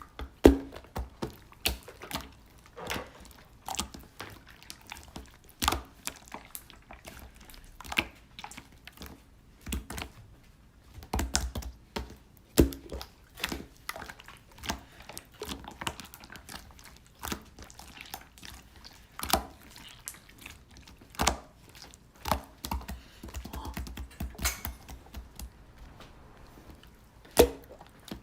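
Slime being handled by hand: irregular sharp clicks and pops, about one or two a second, with some soft low squishing in between.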